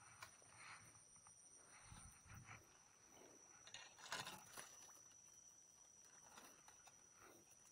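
Near silence: faint rustling and handling of a fishing rod and reel, loudest about four seconds in, over a steady faint high-pitched tone.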